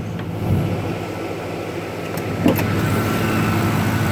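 Ford F150 pickup engine idling steadily, with a couple of short knocks about two and a half seconds in.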